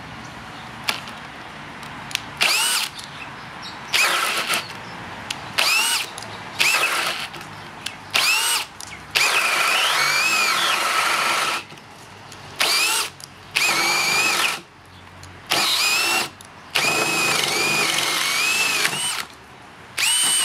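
Bosch GSB 18V-150 C cordless combi drill turning a 65 mm bit at top speed in about a dozen stop-start bursts, mostly a second or so each, with two longer runs. In each burst the motor whine climbs and then drops as the bit takes load.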